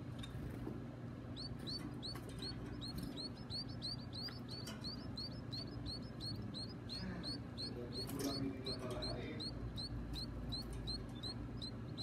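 Nestling birds begging to be fed: a rapid series of short, high chirps, about four a second, starting about a second in.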